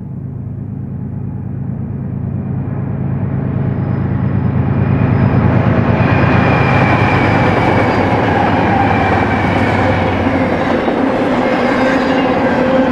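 BNSF diesel-hauled train approaching and running past: a steady low locomotive engine drone under a rolling rumble of wheels on rail that grows louder over about the first six seconds, then holds steady.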